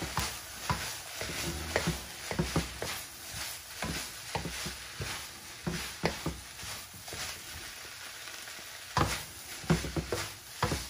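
Shredded turkey sizzling in a frying pan while a wooden spatula stirs it, scraping and knocking against the pan at an irregular pace, with a few louder knocks about nine seconds in.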